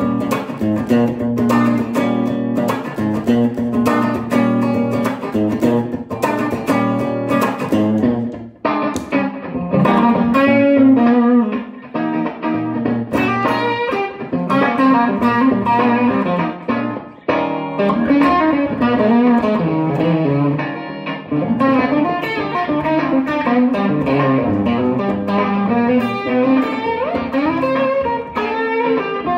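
Suhr S-style electric guitar improvising a blues solo, single-note lines with bent notes, over a looped rhythm-guitar part playing a minor-seven to dominant-seven chord progression.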